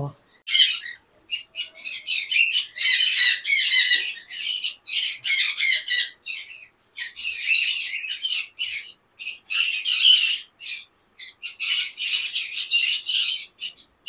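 Conures squawking: a fast run of short, harsh, rasping calls with brief gaps, a few of them longer and drawn out.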